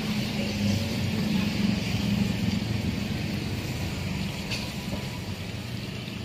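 Duck pieces deep-frying in a large pot of hot oil: a steady bubbling sizzle over a continuous low rumble.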